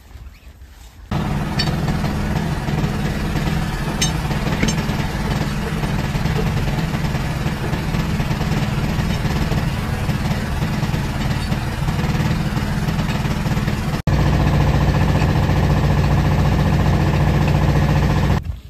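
A motor running steadily with a low hum, starting abruptly about a second in and louder over the last few seconds.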